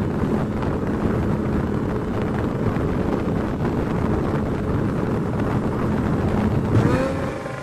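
Boat outboard motor running under way, with wind buffeting the microphone. Near the end the engine note changes and the level drops.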